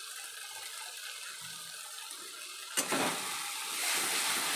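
Tomato-onion masala sizzling steadily in hot oil in a metal kadai. Nearly three seconds in, a metal spatula starts stirring the freshly added ground spices through it, with louder scraping strokes against the pan and the frying growing louder.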